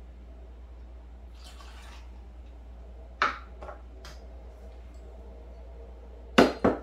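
A short pour of tequila from a metal jigger. Then a sharp click and a couple of small ticks as the jigger is put down and the bottle cap is screwed on. Near the end come two loud knocks as the glass tequila bottle is set down on the counter.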